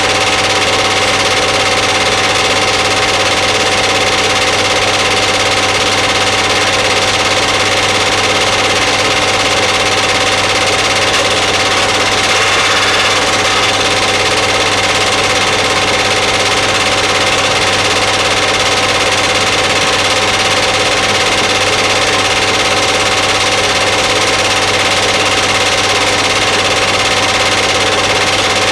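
Steady mechanical whirr and hum of a film projector running, unchanging throughout.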